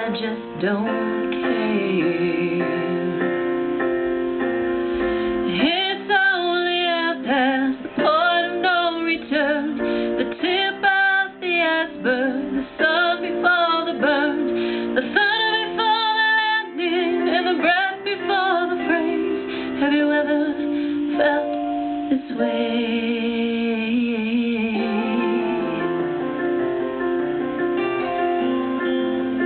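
A woman singing a slow pop ballad over an instrumental backing track. Her sung phrases come thickest through the middle of the stretch, with sustained accompaniment underneath throughout.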